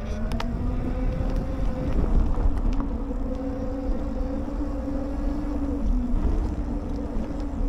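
Lectric XP Lite e-bike's hub motor whining at a steady pitch while riding, over a constant low rumble of wind and tyre noise.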